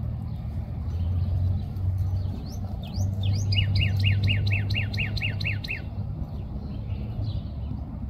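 Northern cardinal singing: a few rising notes about three seconds in, then a quick run of about ten clear down-slurred whistles, roughly four a second, over a steady low rumble.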